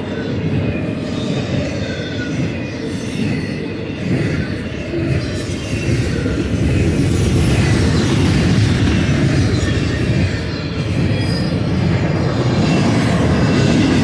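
Intermodal freight train cars, flatcars carrying trailers and double-stack container well cars, passing at speed: a steady loud rumble and clatter of steel wheels on rail, growing a little louder about halfway through. Thin, high wheel squeals come and go above it.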